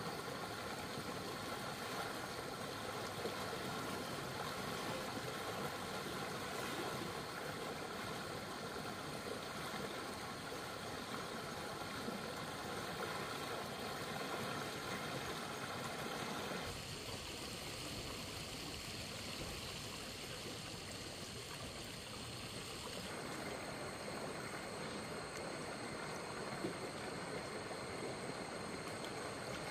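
Stream water rushing steadily, its sound shifting abruptly about 17 and 23 seconds in.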